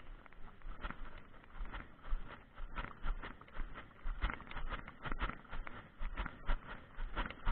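A ridden Egyptian Arabian mare's hooves: a quick, uneven run of hoofbeats, about four or five a second.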